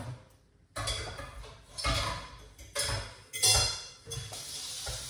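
Kitchen dishes and utensils clattering as a bowl is handled: four sharp knocks, each ringing briefly. Near the end a steady hiss sets in, like food sizzling in a pan.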